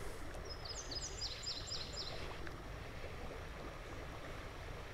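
Shallow creek water flowing over gravel, a steady wash. From about half a second in, a bird sings a quick run of about six short, high, falling notes lasting under two seconds.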